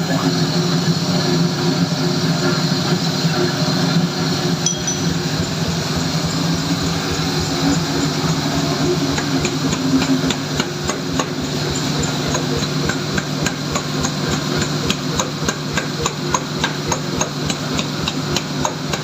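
Metal being struck with a hammer in quick, even blows, about three a second, each with a short metallic ring, over a steady low machinery hum. The blows become clear about halfway through.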